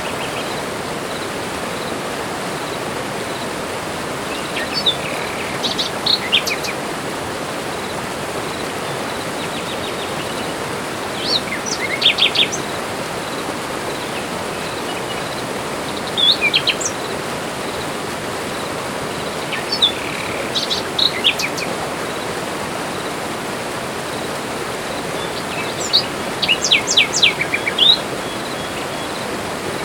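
Forest birds singing in short bursts of chirps and whistles every few seconds, over a steady rushing background noise.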